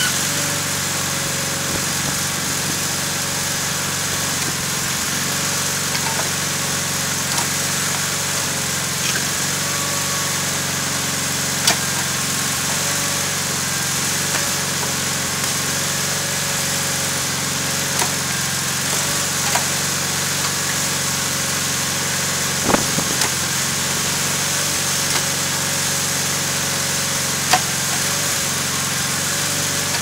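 Case/Ingersoll garden tractor engine running steadily at constant throttle while powering a 6018 hydraulic backhoe digging dirt. A few short sharp clanks stand out here and there, one a little before halfway and several in the second half.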